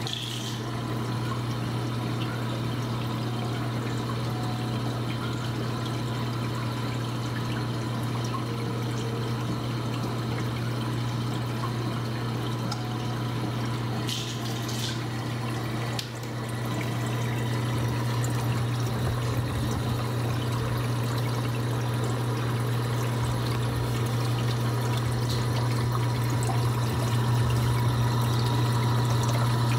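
Reef aquarium water trickling and splashing over a steady low pump hum. It gets louder about 16 seconds in.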